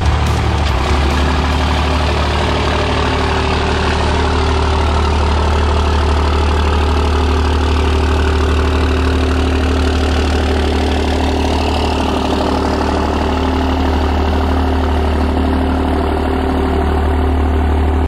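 Pickup truck engine idling steadily, with a low, even drone.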